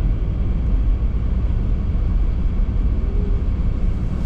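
Steady low road and tyre rumble inside the cabin of a moving 2024 Chevrolet Equinox.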